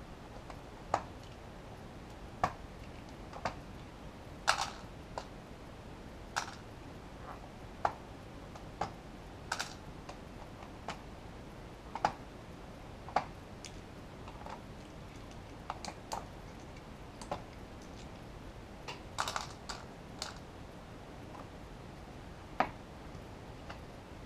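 Irregular light clicks and taps, roughly one a second with a quick cluster near the end, from the metal front panel and parts of a Behringer Ultragain MIC2200 rack preamp being handled and taken apart.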